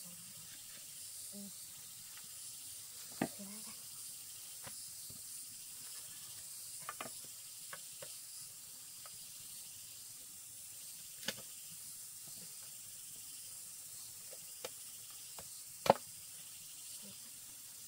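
Scattered sharp knocks of bamboo poles and pieces bumping together as they are handled and fitted upright, the loudest one near the end. A steady high hiss runs underneath.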